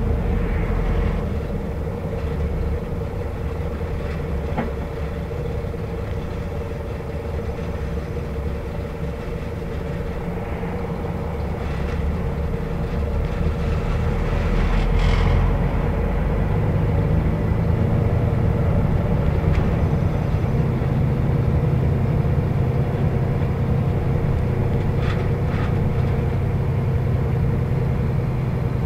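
Volvo B7R bus under way, heard from inside: its diesel engine and road noise running steadily with a steady low whine, growing louder about halfway through.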